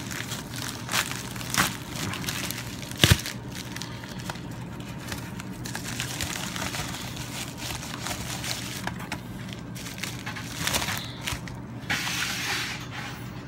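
A shipping package being torn open and unpacked by hand: the white mailer rustles and crinkles, with scattered clicks, a sharp knock about three seconds in, and a louder burst of rustling near the end as the contents are pulled out. A steady low hum runs underneath.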